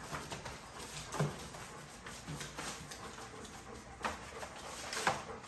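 American bully puppies moving about in wire crates lined with newspaper: scattered light scratches, clicks and paper rustles, with a couple of faint low puppy grunts.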